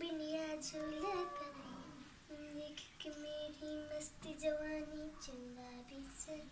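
A child singing a tune in short held notes that step up and down.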